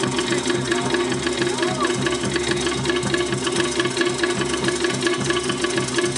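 Rapid, steady Tahitian drumming: a driving roll of sharp strokes on slit log drums (to'ere) with deeper drums beneath, the rhythm for a fast 'ote'a dance.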